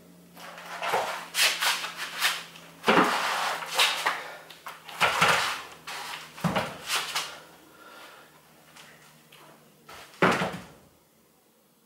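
Heavy metal engine block being rocked and dragged across a concrete floor, scraping and knocking in several separate bouts, the last one near the end. A steady low hum runs underneath.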